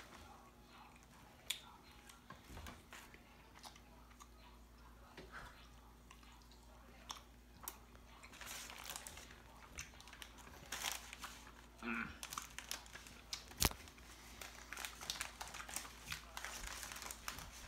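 Clear plastic zip-top bag crinkling in short, scattered rustles as sour candy straws are pulled out and handled, with faint chewing of the candy. A single sharp click about 13 seconds in is the loudest sound.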